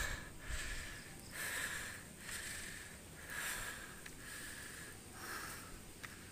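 A man breathing hard, in and out about once a second, winded from climbing steep stone steps.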